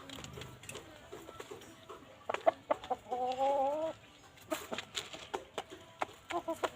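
Chickens clucking, with one drawn-out call lasting about a second, three seconds in, and quick short clucks near the end, amid scattered sharp taps.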